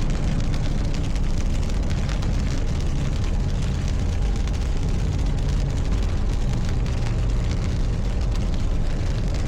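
Steady road and engine rumble of a moving car heard from inside the cabin, a constant low drone with a hiss of tyre and wind noise over it.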